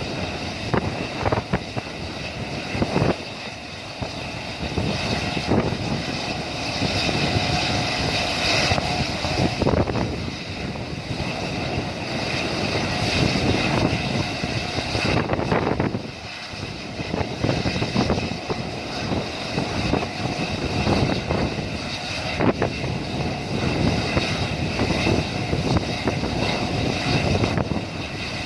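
Helicopter running: a steady high turbine whine over a continuous rotor roar.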